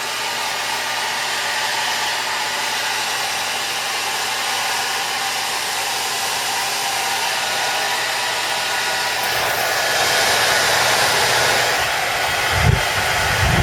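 Hair dryer running steadily, a constant blowing hiss with a faint motor whine. About nine and a half seconds in it grows louder and fuller, and near the end a low rumble comes and goes.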